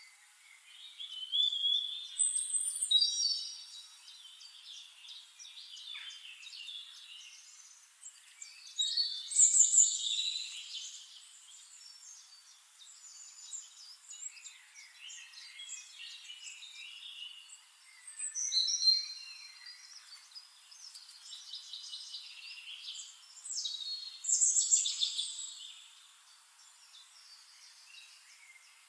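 Songbirds singing: loud bursts of trilling, whistled song every six to nine seconds or so, with softer twittering and chirps between.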